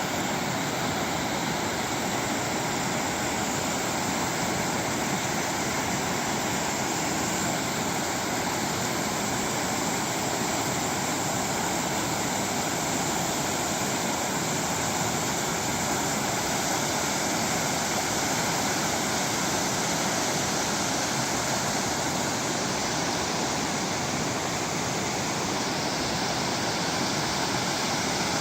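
Creek in flood, its high water rushing steadily.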